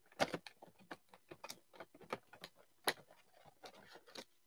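Trading cards being handled: quick, irregular light clicks and rustles, about three or four a second, stopping just before the end. The sharpest snaps come near the start and about three seconds in.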